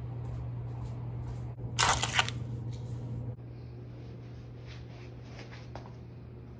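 Steady low room hum with a brief, loud rustling clatter about two seconds in, then a few faint soft taps.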